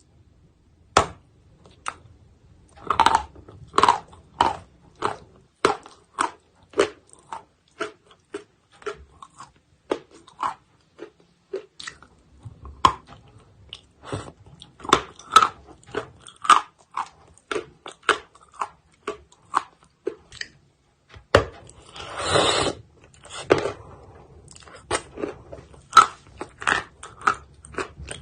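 Close-up dry crunching of a chalk bar being bitten and chewed: a long run of separate sharp crunches, about one or two a second, with a longer grinding crunch about 22 seconds in.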